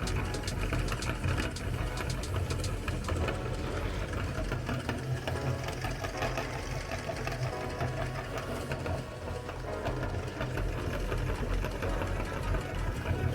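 Meat grinder running steadily, a motor hum under rapid crunching clicks as cookies are ground.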